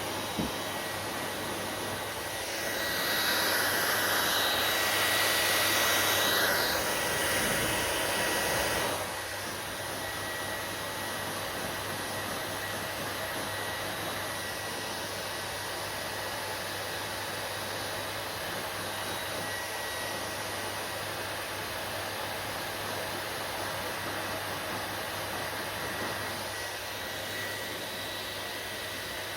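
Hair dryer running steadily, a blowing hiss with a thin steady whine. About three seconds in it gets louder for several seconds, then drops back to its steady level.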